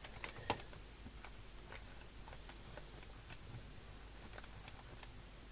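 Faint regular ticking, about two ticks a second, over a low steady mains hum, with one sharper click about half a second in.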